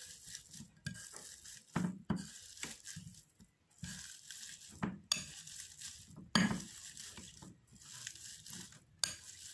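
Metal wire potato masher pressing and scraping through a spiced boiled shredded mutton filling in a glass bowl, with irregular dull knocks and the odd clink of metal on glass.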